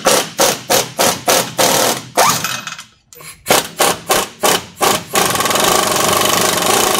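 Pneumatic impact wrench hammering on a nut at a pickup's rear axle. It comes in short trigger bursts, about three a second, pauses briefly about three seconds in, bursts again, then runs continuously from about five seconds on.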